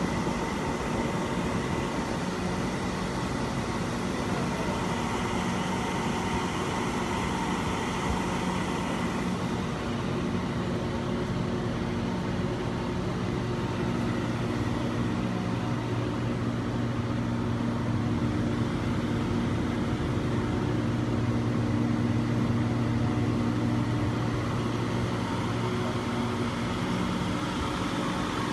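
Bird treat stick forming machine running: a steady machine hum with several low tones over a hiss. About ten seconds in the hiss thins and a deeper hum comes in, easing off near the end.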